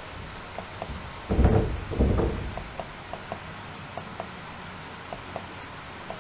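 Shiba Inu sneezing twice in quick succession, about a second and two seconds in, after sniffing hard at sweaty skin. Light laptop key clicks tick now and then.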